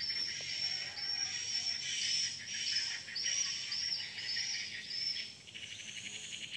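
Outdoor chorus of birds and insects: a rapid string of short, high-pitched chirps repeating a few times a second, turning near the end into a thin, buzzy trill.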